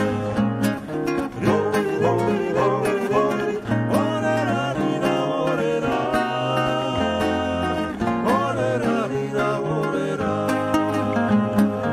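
Two acoustic guitars playing while two men sing into microphones, in a live performance of a Georgian song.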